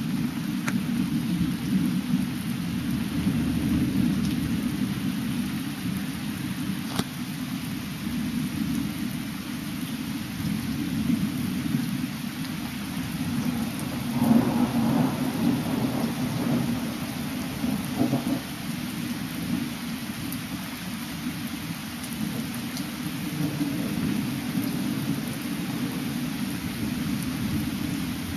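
Thunderstorm: steady rain with a low rumble of thunder that swells louder about halfway through.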